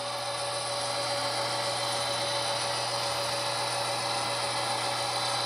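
HO scale SD40 model diesel locomotive running slowly along the track, giving a steady, unchanging mechanical hum and whine.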